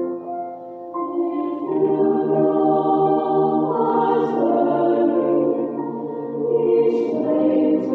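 A cappella choir singing a requiem in slow, held chords. The voices drop softer just after the start, then swell into a fuller chord about two seconds in and again near the end.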